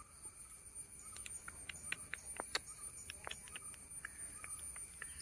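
Outdoor insect chorus: a steady, high-pitched buzz with many short chirps and ticks scattered through it.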